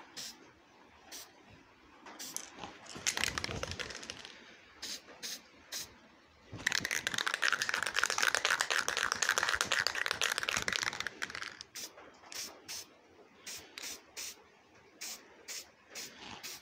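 Masking tape being pulled off the roll: a short tearing pull about three seconds in, then a long crackling pull of about four seconds in the middle, with scattered light clicks and taps around them.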